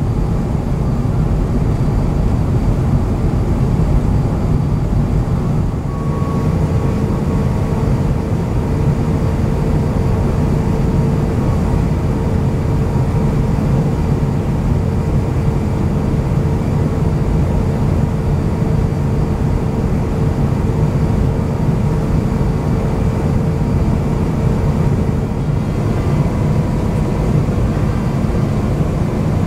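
Cabin noise inside an Airbus A350-900 in flight: a steady low rumble of airflow and its Rolls-Royce Trent XWB engines. A faint steady hum joins about six seconds in and stops a few seconds before the end.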